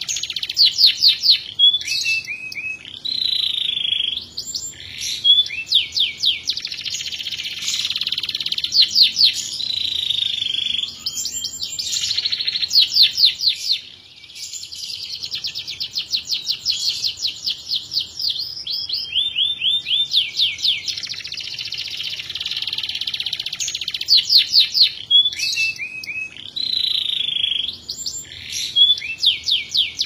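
Domestic canary singing a continuous song of fast trills, rapid runs of rising notes and drawn-out whistles, breaking off briefly about halfway through.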